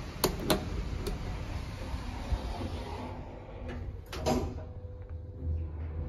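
A few sharp clicks near the start, then a 1985 Mitsubishi lift's sliding car doors running shut, ending in a bump about four seconds in. After that, a faint steady hum.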